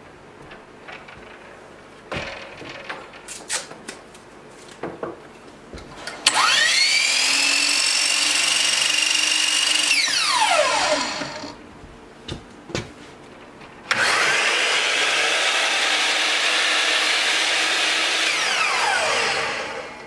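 Two miter saws run one after the other with no cut, each motor spinning up to a steady high whine and then winding down with a falling pitch. The older 10-inch saw runs for about four seconds from about six seconds in. After a pause with a few clicks, the new Bosch 12-inch glide miter saw starts about fourteen seconds in, runs about five seconds and winds down near the end. Clicks and knocks of handling come first.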